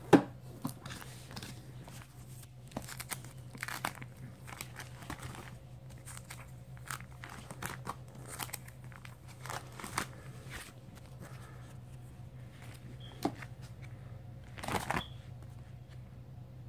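Plastic binder sleeve pages crinkling and rustling as they are handled and turned, in short irregular bursts with soft clicks, a sharp click right at the start and a longer crinkle near the end. A steady low hum runs underneath.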